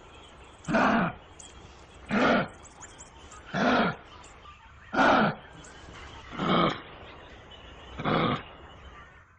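A kangaroo calling in a repeated series of short, rough grunting calls, six of them at a steady pace of about one every second and a half.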